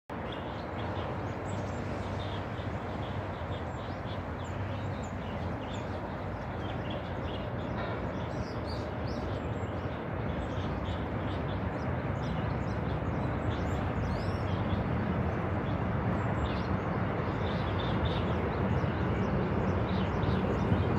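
Many small birds chirping and twittering in quick short calls over a steady low background rumble that grows gradually louder.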